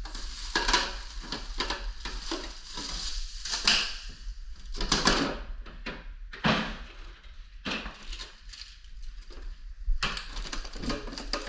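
Things being taken out of and handled inside a refrigerator: irregular clattering and knocks of containers and shelves, with rustling in between.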